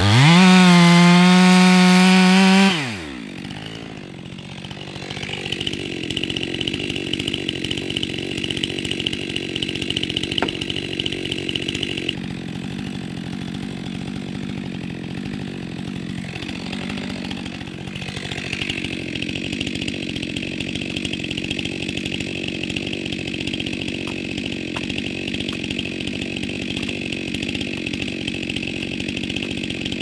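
Stihl MS 462 C-M chainsaw at high revs, its pitch dipping and climbing, then falling away sharply about three seconds in. After that comes a quieter, steady running sound with a steady high-pitched hum over it.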